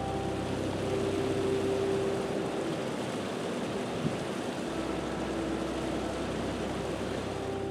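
A steady rushing noise, cut in and out abruptly, with soft music running underneath.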